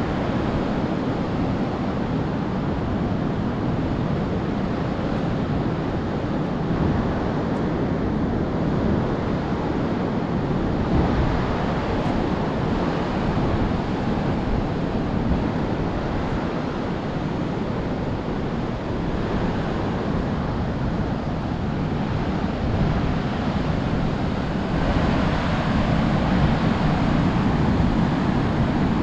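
Ocean surf breaking on the shore, a steady wash of noise, with wind buffeting the microphone; it grows a little louder in the last few seconds.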